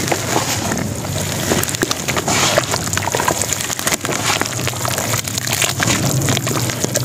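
Hands crushing and crumbling chunks of dry cement and sand, with a dense, gritty crackle of breaking pieces and falling grit.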